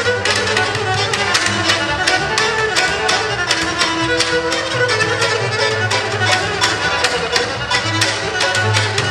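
Bulgarian folk trio playing a rachenitsa in its uneven seven-beat rhythm: gadulka bowing the melody over strummed tambura and plucked double bass, with dense, evenly driven strokes.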